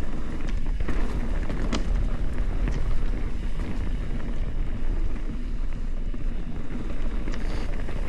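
Full-suspension mountain bike being ridden on a trail: wind buffeting the microphone over steady tyre and trail rumble, with a few sharp knocks from the bike.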